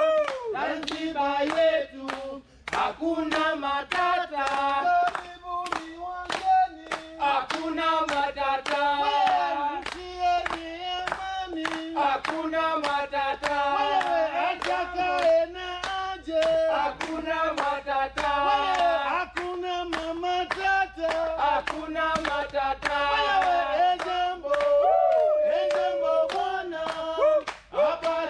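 Voices singing a song together over a steady beat of hand-clapping.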